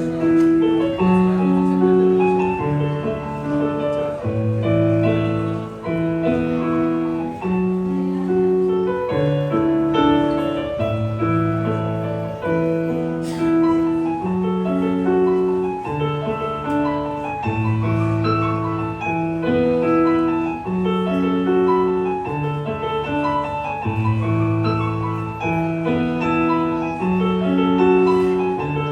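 Solo piano playing a slow, steady piece: a low bass note roughly every three seconds under broken chords and a melody in the middle register.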